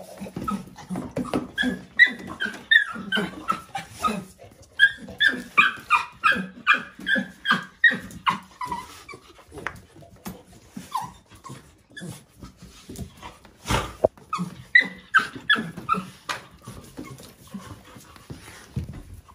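American Bully puppy whining and yelping in quick runs of short high-pitched cries, in three bursts of a few seconds each, with scattered knocks in between.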